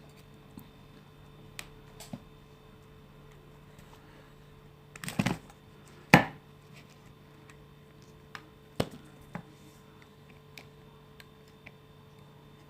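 Scattered small clicks and taps of tweezers and tools working on an opened iPhone 6S, the loudest a sharp click about six seconds in, with another near the nine-second mark. A faint low steady hum lies underneath.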